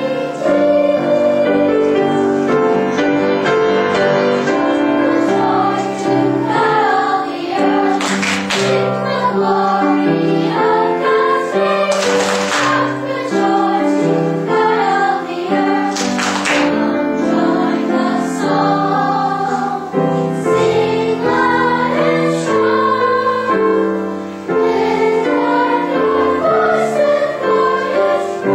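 Children's choir singing an anthem together, accompanied by piano.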